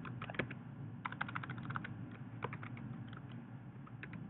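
Computer keyboard keys being typed in short bursts of faint clicks, with the quickest run of keystrokes between about one and two seconds in, typing a short word.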